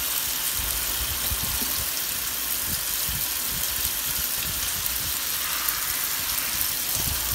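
Running water, a steady hiss that splashes into a bathtub while a small dog is washed.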